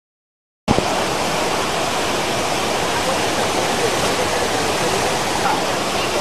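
Waterfall pouring down a smooth rock face into a pool: a steady, loud rush of water that starts abruptly under a second in.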